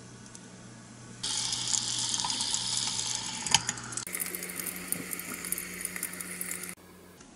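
Hot oil sizzling and crackling around a small breaded chicken piece frying in a miniature deep fryer. It starts suddenly about a second in and cuts off abruptly near the end.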